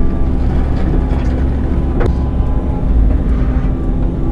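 Excavator's diesel engine running steadily while digging, with a single sharp knock about two seconds in.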